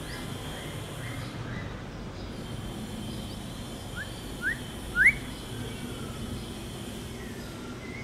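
White-rumped shama calling: a few faint short rising whistles in the first second or so, then three upslurred whistles about half a second apart around the middle, each louder than the last.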